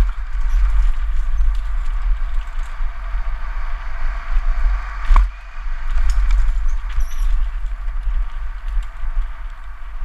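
Mountain bike descending a dirt singletrack, heard from a rear-facing action camera on the rider's helmet: heavy wind rumble on the microphone over a steady hiss and rattle of tyres and bike on the dirt, with scattered small clicks. One sharp knock about five seconds in.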